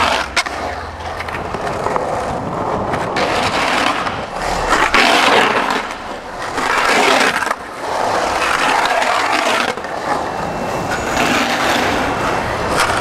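Skateboard wheels rolling on concrete and the board's metal Independent trucks grinding along concrete walls and coping, in several grinds one after another, with a few sharp clacks of the board.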